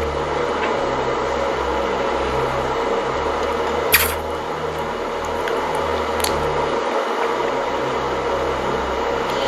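Steady hum and hiss of background noise, with a sharp click about four seconds in and a fainter one a couple of seconds later.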